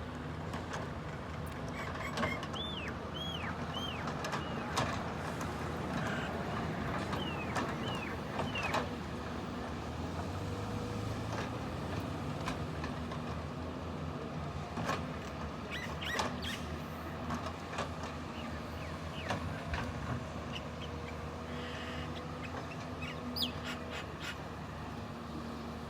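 Doosan DX225LC hydraulic excavator running steadily at work, with scattered sharp knocks and clanks and a few short high chirping squeaks over the engine hum.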